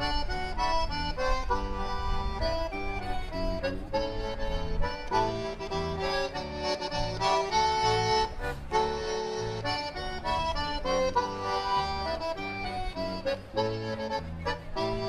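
Concertina playing a lively polka melody, with electric guitar keeping a steady oom-pah beat underneath.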